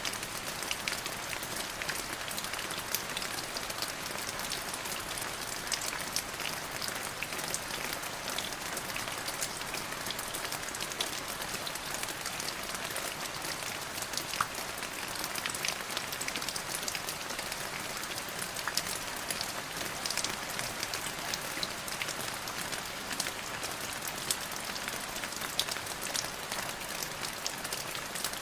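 Steady rain falling, with a dense pattering of individual drops striking a surface.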